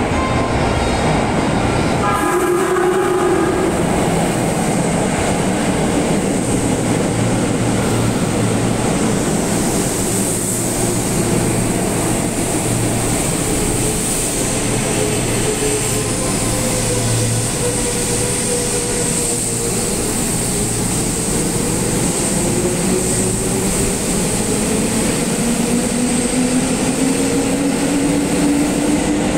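JR East 205 series (3100 sub-series) electric trains in an underground station. Near the start one train sounds a short horn blast as it runs in, and it rumbles to a stop. Near the end a second train pulls away, its traction motors giving a whine that rises in pitch as it accelerates.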